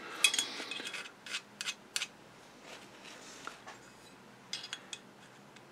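A screwdriver scraping old, thick grease and crud out of a Singer 201-2 potted motor housing: irregular short scrapes and light clicks, busiest in the first two seconds, then a few more.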